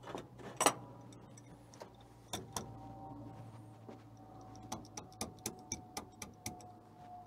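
Sharp metallic clicks and clinks of hand tools on engine-bay hardware. It starts with a few scattered knocks, then a run of even ticks, about four a second, near the end.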